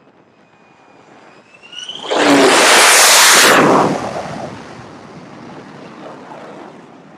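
F-35C Lightning II's single Pratt & Whitney F135 turbofan on carrier landing approach: a whine that rises in pitch as the jet closes in, then a very loud jet roar for about a second and a half as it passes and lands, easing into a lower rumble.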